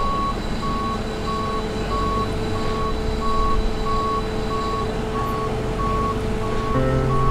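A reversing alarm beeping steadily, one high tone about one and a half times a second, over a steady low engine rumble. Near the end a deeper hum joins in.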